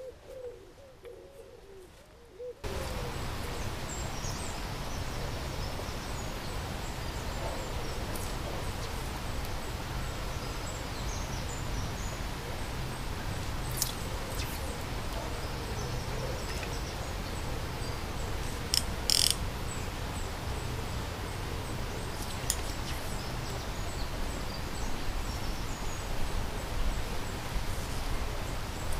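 Outdoor lakeside ambience: a steady low rumble of background noise, with small birds chirping and a pigeon cooing now and then. A couple of sharp clicks come partway through.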